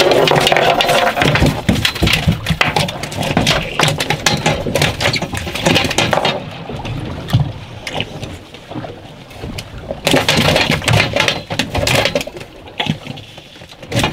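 Water splashing and sloshing against a boat's side, with irregular knocks and clatter of gear being handled over the gunwale.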